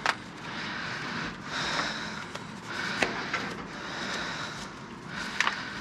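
Scrap being handled and rummaged through: rustling and scraping, with three sharp knocks or clanks, one just after the start, one about three seconds in and one near the end.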